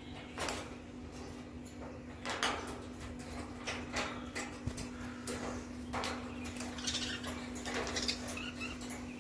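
Alexandrine parakeet clambering around a wire cage: irregular clicks and scrapes of beak and claws on the metal bars, with wing rustles, over a steady low hum.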